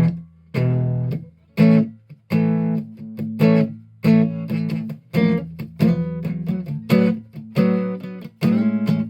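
A.B. Manson "Merlin" stringed instrument strummed in a steady rhythm of chords over sustained low drone notes, played through an AER Bingo 2 acoustic amplifier with no effects.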